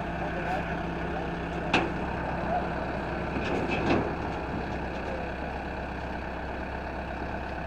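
Tractor diesel engine running steadily while the tractor moves slowly, with a sharp click a little under two seconds in and a few knocks around four seconds in.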